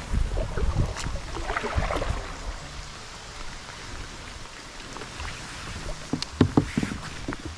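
Water lapping and splashing around a small fishing kayak, with irregular knocks in the first couple of seconds and a few sharp clicks near the end.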